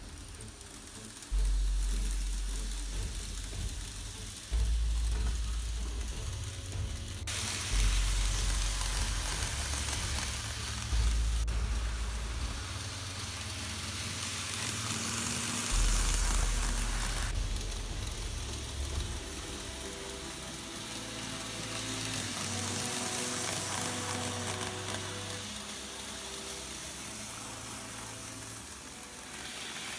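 Background music with deep bass notes that change every few seconds and a few melody notes, over a steady hiss that is loudest through the middle.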